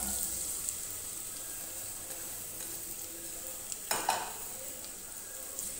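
Sliced onions sizzling in hot oil in a pot, just tipped in to start frying. A single short knock comes about four seconds in.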